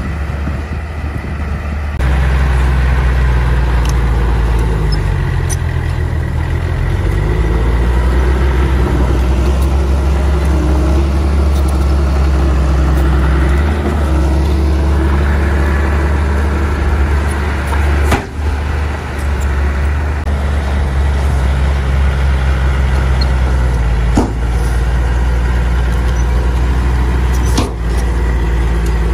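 Heavy diesel earthmoving machinery running: a deep, loud, steady engine drone whose pitch rises and falls in places, louder from about two seconds in, with a few brief knocks.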